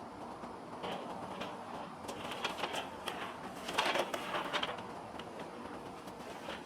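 Old steel water heater tank being rolled over the ground, with irregular clanks and rattles, busiest in the middle.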